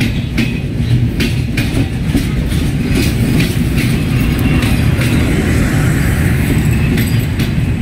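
Bangladesh Railway intercity passenger train rolling along the platform: a loud, steady rumble, with the sharp clack of the wheels over the rail joints.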